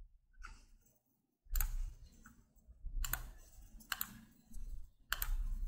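Computer mouse clicking: four sharp clicks about a second apart.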